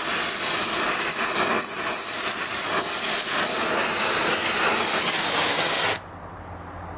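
Oxy-acetylene torch flame hissing loudly and steadily, then cutting off abruptly about six seconds in, leaving only a faint low hum.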